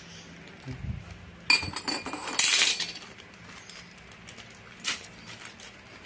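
Hands handling Honda Scoopy CVT parts, a metal variator ramp plate and a plastic parts packet: a sharp metallic clink about a second and a half in, a loud, brief crinkle of the plastic packet being worked open soon after, and a lighter click near the end.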